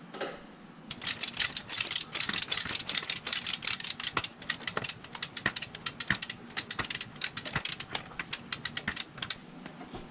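Ratchet being worked in quick strokes: a rapid, uneven run of clicks that starts about a second in and stops sharply near the end.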